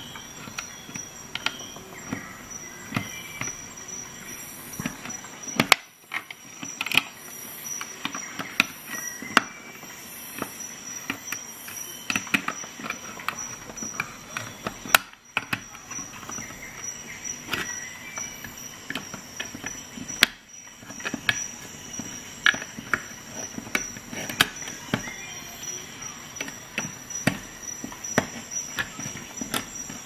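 Multi-tool can opener levering and cutting its way around the rim of a metal can lid: an irregular run of clicks and crunches, several a second, with short metal-on-metal squeaks.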